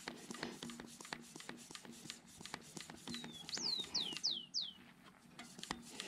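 Faint small clicks and rustles of hands and a tool working on a mountain-bike tyre. About three seconds in, a bird calls: four quick whistled notes, each falling in pitch.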